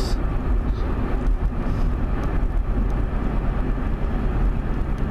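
Car driving along a road: a steady rumble of road and engine noise, heard from inside the car.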